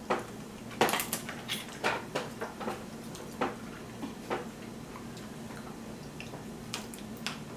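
Irregular sharp clicks, taps and clatter of a seafood boil being handled at the table, busiest in the first half and thinning out later.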